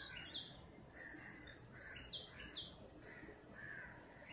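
A small bird chirping faintly: short, sharp downward chirps, about five of them spread irregularly, over quiet room tone.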